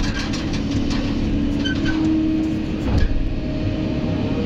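Hydraulic excavator's diesel engine and hydraulic pump running under load, heard from inside the cab, as the bucket dumps soil into a dump truck. A steady whine strengthens around the middle, and a knock sounds about three seconds in.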